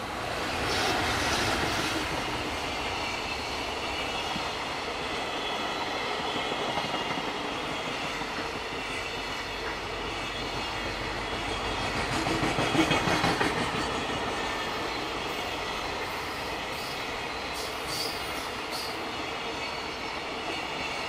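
JR Freight EF210 electric locomotive passing close by, followed by a long string of container flatcars rolling past. A steady rumble of steel wheels on rail with clickety-clack over the rail joints, loudest a little past the middle, with a few sharp clicks near the end.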